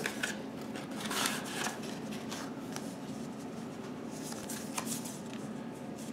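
Cardboard mini-LP replica CD sleeves being handled: a few soft rustles and sliding scrapes of card against card as a sleeve is pulled apart and turned over, over a faint steady hum.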